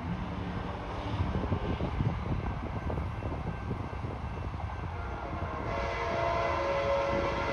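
An approaching passenger train's diesel locomotive rumbling steadily, then its multi-note air horn starts sounding near the end and holds.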